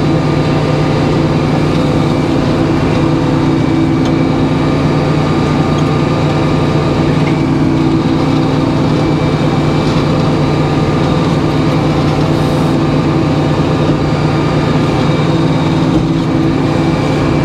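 Circular sawmill running steadily between cuts, its power unit and 56-inch B. H. Payne circular blade spinning at an even pitch and level with no cut under way.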